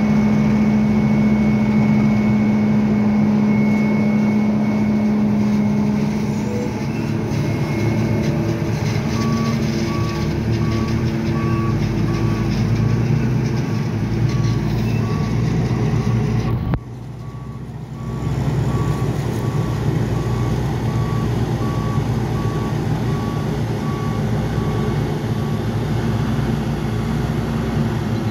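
Heavy diesel farm machinery of a silage corn harvest running steadily: a self-propelled forage harvester and a truck working close by. From about a third of the way in until near the end, a vehicle's reversing alarm beeps about once a second over the engines. The sound dips briefly about two-thirds of the way through.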